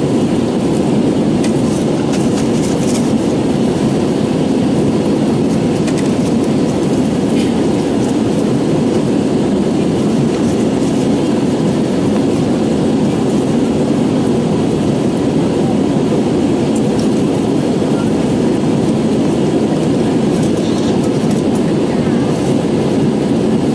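Steady cabin noise of an Airbus A320-214 in flight, its CFM56 engines and the airflow over the fuselage making an even, low roar heard from inside the passenger cabin.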